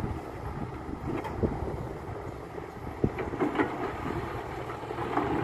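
Kato crawler excavator's diesel engine running steadily as the machine swings and works its boom. From about three seconds in come a run of sharp knocks and clanks.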